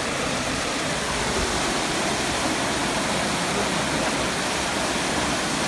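Water gushing through a sluice in a canal lock gate and churning into the lock chamber as the lock levels: a steady, unbroken rush.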